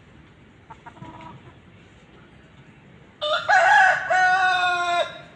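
Rooster crowing once, a loud call of nearly two seconds that starts about three seconds in, with a short dip in the middle. Faint hen clucks come before it, about a second in.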